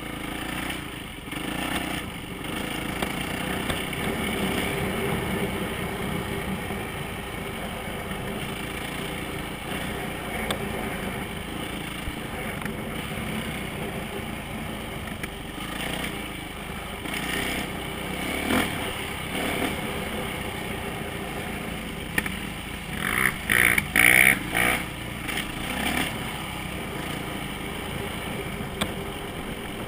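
Dirt bike engine running as the bike rides along a dirt trail. A few loud bursts come about three quarters of the way through.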